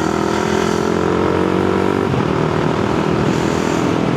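Honda Grom's single-cylinder engine running under way, its note rising slightly, then dropping off about two seconds in before holding steady.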